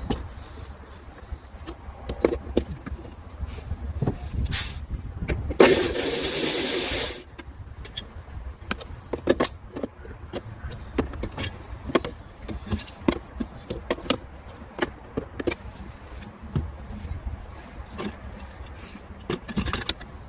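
Metal tools and car parts clicking, clinking and knocking during dismantling work on a car, with one loud, steady noisy burst lasting about a second and a half, about six seconds in, over a low rumble.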